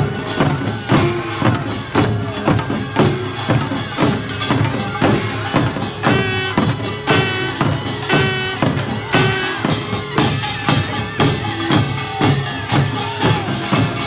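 Korean pungmul percussion band playing live, with drums beating a steady, driving rhythm and metal percussion ringing over it.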